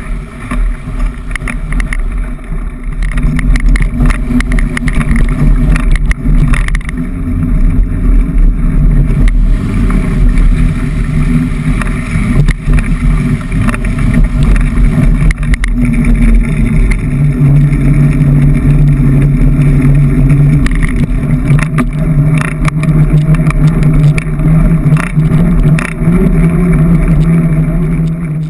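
Mountain bike riding heard from a camera on its handlebars: a loud, steady rumble of tyres and wind on the camera, with frequent rattling clicks from the bike as it rolls through shallow water and over tarmac. A steadier hum joins about two-thirds of the way through.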